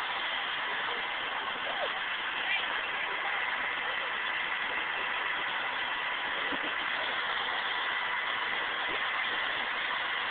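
UH-60 Black Hawk helicopter running on the ground at idle: a steady rush of rotor and twin-turboshaft engine noise with a faint high whine.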